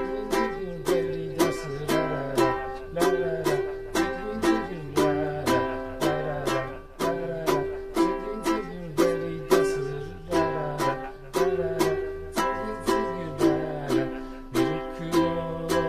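Ukulele strummed in steady chords, about two strums a second, changing chords as it goes.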